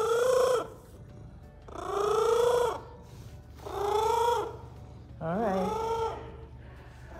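Domestic cat meowing four times, about every one and a half to two seconds, each meow rising and then falling in pitch.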